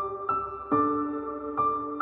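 Soft background music: gentle piano notes struck one after another, each ringing on as it fades.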